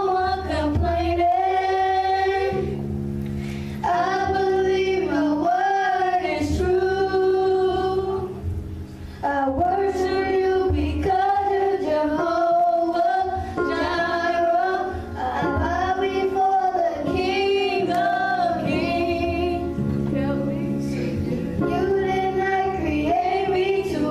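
Two children, a girl and a boy, singing a song into handheld microphones over an instrumental accompaniment of sustained low chords.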